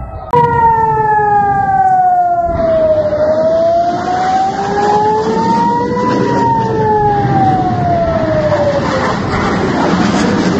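Civil-defence rocket-alert siren wailing in a slow rise and fall: its pitch drops, climbs to a peak about six seconds in, then drops again. It warns of incoming rockets. From about two and a half seconds in, a steady rushing outdoor noise runs underneath.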